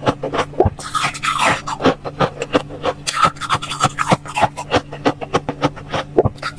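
Powdery freezer frost crunching and crackling as it is scooped with a metal spoon and eaten: a rapid, uneven run of small crisp crackles over a steady low hum.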